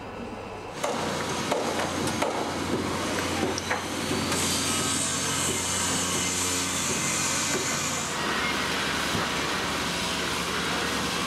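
Restoration-site work noise: scattered knocks and clatter of tools and timber over a steady machine hum, starting abruptly about a second in. A high hiss joins from about four to eight seconds in.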